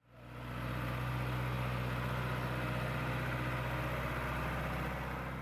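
A machine running steadily with a deep, even hum that does not change pitch.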